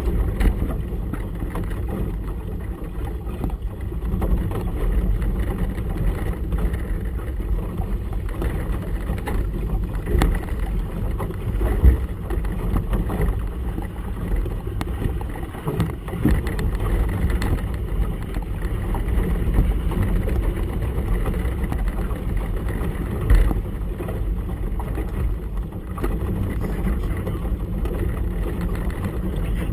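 Small motorboat on choppy water in gusty wind: a steady low rumble of wind buffeting and water with a motor running beneath it. A few louder knocks stand out, the strongest near the middle and about two-thirds of the way through.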